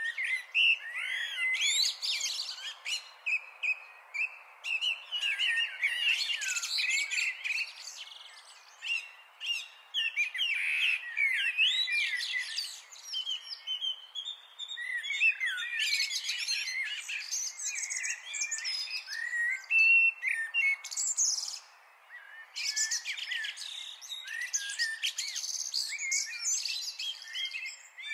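Birds chirping and twittering in quick, overlapping chirps, in stretches broken by brief lulls around a third of the way in and again about three-quarters through.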